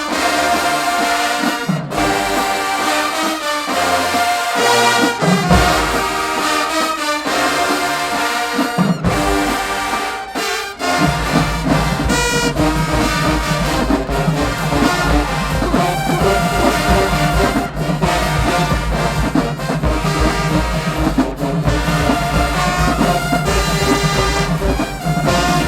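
HBCU-style marching band playing a dance tune led by trombones and trumpets. About ten seconds in, heavy low brass and drums come in under the horns and the music grows fuller.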